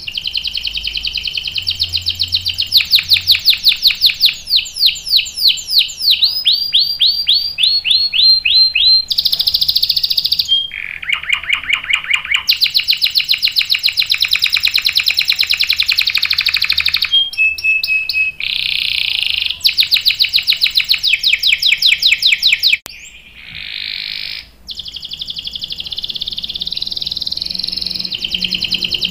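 Domestic canary singing a long, nearly unbroken song of fast rolling trills of rapidly repeated notes, switching from one phrase to the next, with a short drop about three quarters of the way through.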